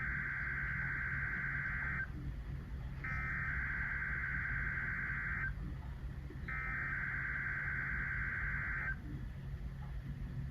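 NOAA Weather Radio's EAS SAME header: three bursts of buzzing digital data tones, each about two seconds long and about a second apart, over a steady low hum. These bursts are the coded header that opens a Required Weekly Test.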